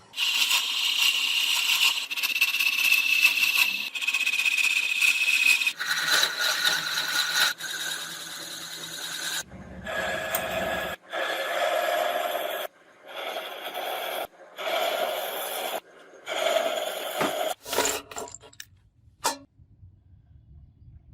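Power tools grinding and scraping in a string of short clips, each cut off suddenly, some with a high steady whine. It falls near silent for the last couple of seconds.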